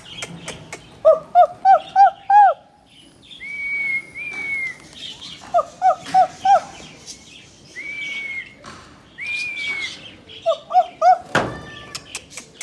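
Runs of short, clear up-and-down whistle-like calls, four or five in quick succession, heard three times, with longer single higher notes between them and scattered clicks; a sharp knock near the end.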